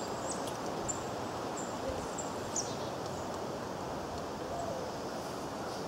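Steady outdoor background noise with small birds chirping, short high calls about every half second during the first few seconds.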